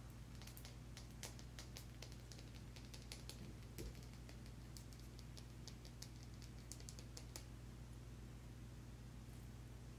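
Long fingernails clicking and tapping on a small glass essential-oil bottle, in quick irregular clicks that stop about seven seconds in, over a low steady hum.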